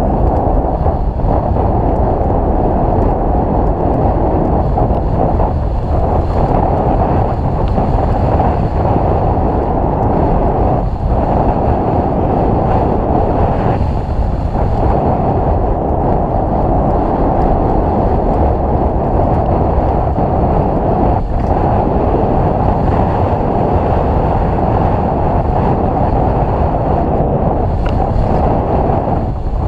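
Steady wind rush on the action-camera microphone of a mountain bike riding fast down a wet dirt trail, with the rumble of tyres and bike underneath. The noise dips briefly a few times.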